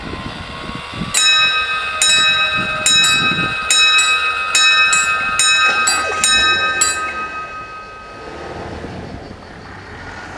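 Level crossing's two electric bells striking repeatedly and slightly out of step with each other, while the barriers rise after a train has passed. The ringing starts about a second in and stops about seven seconds in.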